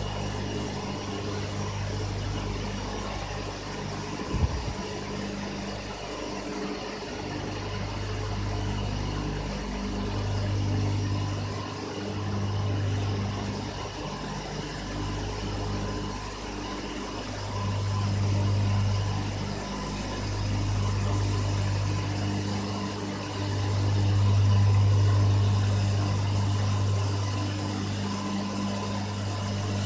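Steady machinery drone of power-station steam turbine-generator sets running, with a deep hum that swells and fades every few seconds and steady higher tones above it. A brief sharp knock about four seconds in.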